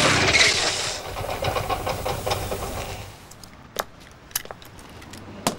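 Motorcycle engine running loud as the bike pulls up, easing after about a second to an even, rapid idle. It then falls quieter, with three sharp clicks near the end.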